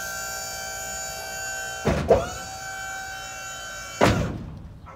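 Maxon tuck-under liftgate's electro-hydraulic pump motor whining steadily as the platform is raised. There is a loud clunk about two seconds in, where the whine briefly dips under load, and a second clunk about four seconds in, after which the motor stops.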